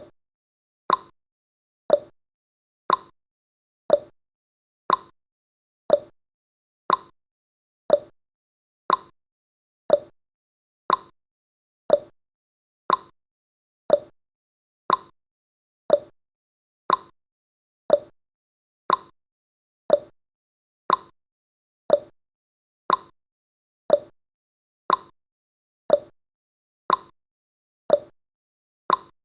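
Countdown timer's ticking sound effect: a short, sharp tick once every second, evenly spaced with silence between.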